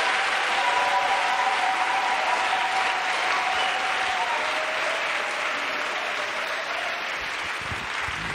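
Congregation clapping in applause, the clapping slowly dying down.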